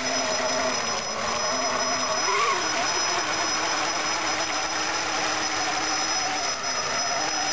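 Electric motor of a 1/6-scale RC monster truck whining steadily as its tyres churn through pond water, its pitch rising and falling briefly about two and a half seconds in with the throttle.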